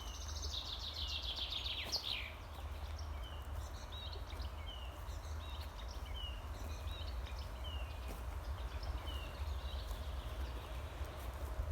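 Forest songbirds singing: a fast trill that drops in pitch at its end in the first two seconds, then a short falling chirp repeated about once a second. A steady low rumble runs underneath.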